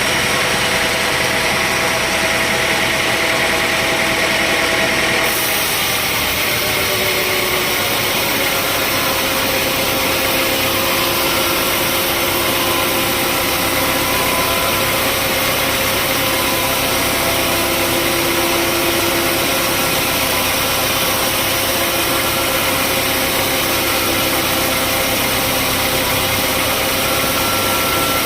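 Engine of sawmill machinery running steadily, with a few wavering pitched tones over it; the upper part of the sound changes abruptly about five seconds in.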